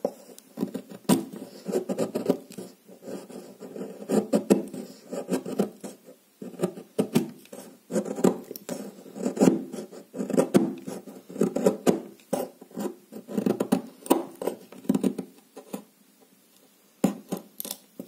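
Opinel No. 8 garden knife whittling a wooden stick: a run of short scraping cuts, one after another, as the steel blade shaves curls off the wood. The cutting stops briefly about fifteen seconds in, then a few quick light strokes follow near the end.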